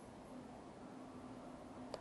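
Faint steady hiss of room tone with a low, wavering hum, and one short sharp click at the very end.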